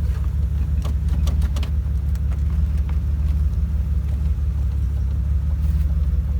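A car engine idling steadily with a low, even hum, with a few light clicks about a second in.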